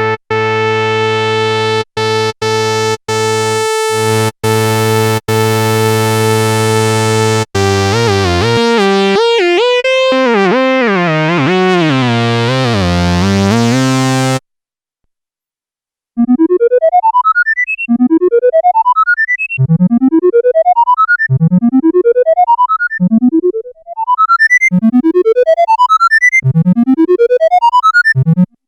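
Korg monologue analog monophonic synthesizer playing factory presets. A bright, buzzy held tone is broken by a few short gaps, then gives way to a warbling, wobbling pitch. After a short pause comes a repeating note that sweeps quickly upward, about every second and a half.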